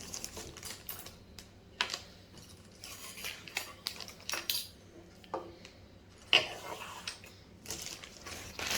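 Plastic packaging rustling and small plastic kit pieces clicking and knocking as they are taken out of the packet and set down, with a sharper knock about six seconds in.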